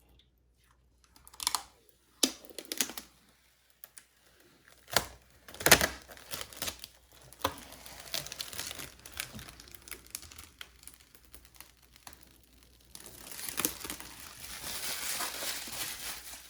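Hands handling computer parts and plastic packaging: scattered clicks and knocks, crinkling, and a longer stretch of rustling near the end.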